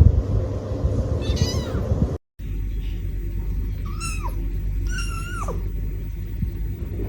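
Cat meowing: one call, then after a brief cut two more calls about a second apart, each falling in pitch at the end, over a low steady rumble.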